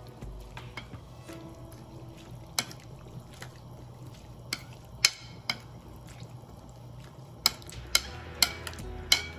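Sharp clinks of a utensil against cookware, about eight in all: one a little before three seconds in, a few around five seconds, and a quick run of four in the last two seconds, over a low steady hum.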